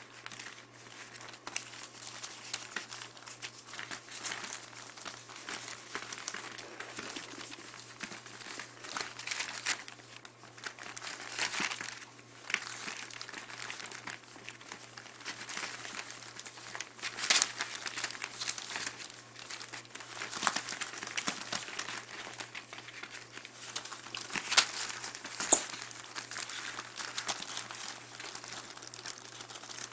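Newspaper lining a puppy pen crinkling and rustling as Maltipoo puppies move and paw about on it, with a few louder crackles.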